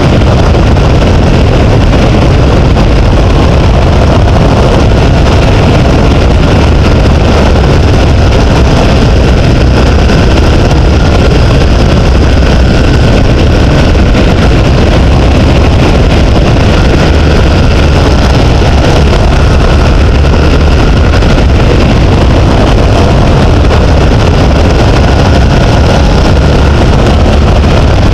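Loud, steady rush of wind buffeting the microphone, with deep rumble from the vehicle rolling downhill on the tarmac road.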